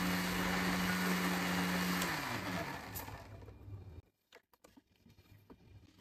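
Electric kitchen mixer grinder running with a steady hum, then switched off about two seconds in and winding down to a stop. A few light clicks follow.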